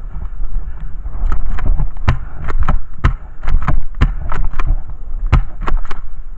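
Pump-action airsoft shotgun fired four times about a second apart, each shot followed by two clacks of the pump being racked back and forward. Wind buffets the microphone.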